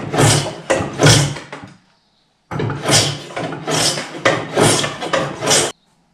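Repeated strokes of a hand tool working wood, each a short rasping hiss, about two a second. They stop abruptly about two seconds in, resume half a second later and stop again near the end.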